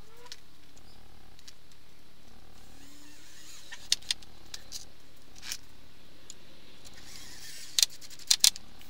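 Cordless drill driving wood screws down through timber bed slats in short spells, with a few sharp clicks and knocks of wood and screws. The loudest knocks come in a cluster near the end.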